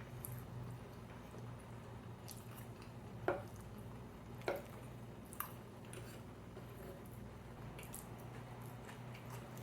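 Close-miked chewing and wet mouth sounds of someone eating, with three sharp smacks or clicks about three to five and a half seconds in, over a steady low hum.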